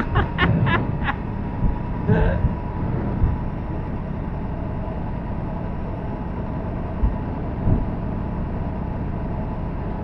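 Aprilia RS 457's parallel-twin engine running steadily under wind rush as the motorcycle is ridden, with a few short knocks in the first second and two dull thumps near the end.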